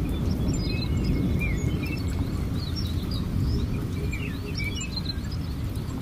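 Small birds chirping and twittering in many quick, short calls over a steady low rumbling noise, which is the loudest sound throughout.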